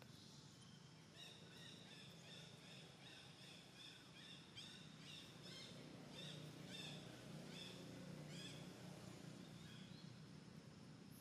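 A bird calling faintly: a long run of short, high chirps, two or three a second, starting about a second in and tailing off near the end, over a low steady background hum.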